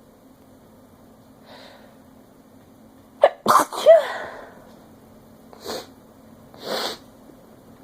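A woman sneezing: a faint intake of breath, then one sharp, loud sneeze with a voiced, falling cry about three seconds in, followed by two short breathy sounds.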